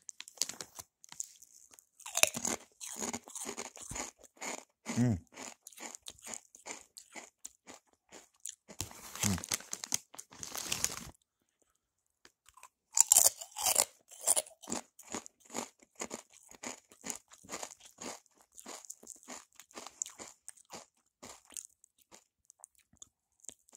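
Close-up chewing of kettle-cooked jalapeño potato chips (Tim's Cascade), a rapid run of crisp crunches with a short break about halfway through.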